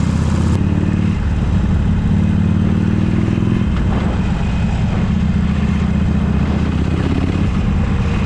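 Harley-Davidson Forty-Eight's air-cooled V-twin engine running under way as the motorcycle is ridden, its note shifting a few times.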